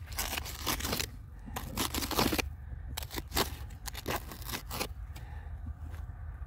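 A red-handled hand digging tool scraping and jabbing into a wall of packed sandy sediment, with crumbling grit falling, in a run of irregular scrapes and crunches.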